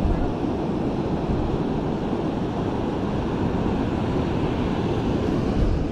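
Steady rush of ocean surf and wind buffeting the microphone, with no distinct events.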